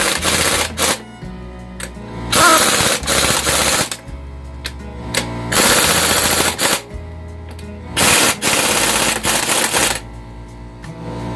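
Pneumatic impact wrench hammering in repeated bursts of one to two seconds, four in all, as it runs down the engine mount bolts.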